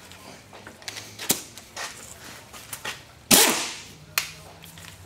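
A few sharp metal knocks and clanks at uneven spacing from tools working on a steel suspension control arm during bushing replacement. The loudest strike, about three seconds in, rings briefly after it.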